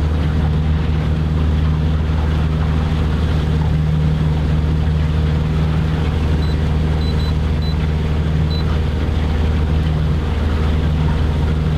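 Boat's outboard motor running steadily under way, a constant hum, with water and wind noise around it. A few faint short high beeps come about six to eight seconds in.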